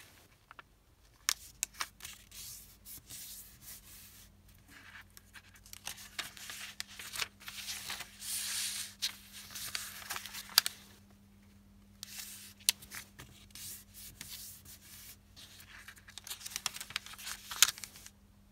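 A sheet of origami paper being folded corner to corner and creased along its diagonals: rustling and sliding of the paper against the table and hands, in irregular stretches with a few short sharp crackles as folds are pressed flat and the sheet is opened out.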